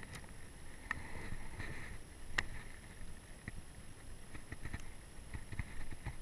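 Scattered clicks and knocks from handling a just-landed crappie on the line and rod, the sharpest about two and a half seconds in, over a low rumble of wind or handling on the microphone.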